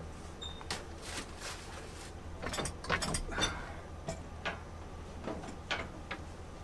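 Scattered metallic clanks, knocks and rattles of tools and steel parts being handled during a repair of a combine's unloading-auger chain drive, a few with a short ring.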